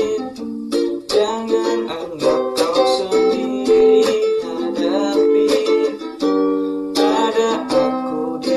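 Instrumental passage of a song: strummed chords on an acoustic string instrument, a new strum about every second, with no singing.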